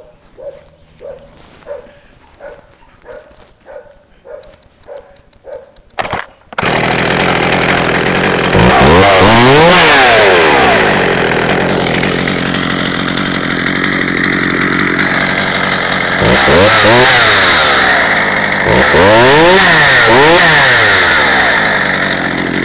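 Stihl 020T top-handle chainsaw's small two-stroke engine. A series of short regular pulses comes first while the starter is pulled. About six seconds in the engine catches and keeps running. It is revved up and back down several times.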